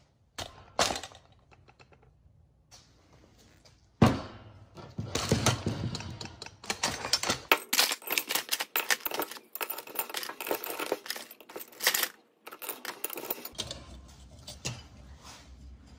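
Scrap aluminum parts clattering and clinking as they are handled in a plastic tub on a digital scale and loaded into a crucible. There is a sharp knock about four seconds in, then a dense run of small metal clinks and rattles that thins out near the end.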